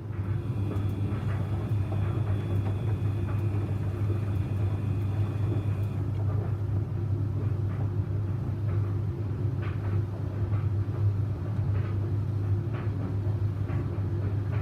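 Samsung washing machine running a 95°C boil-wash cycle: a steady low motor and drum hum with occasional light knocks from the load, and a faint high whine that stops about six seconds in.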